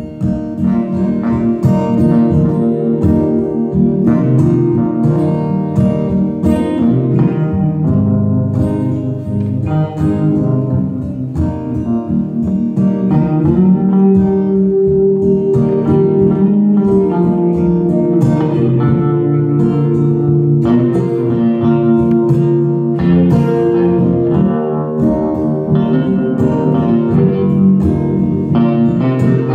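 Acoustic guitar and electric guitar playing together, with no vocals: strummed and picked chords with single-note lines on top.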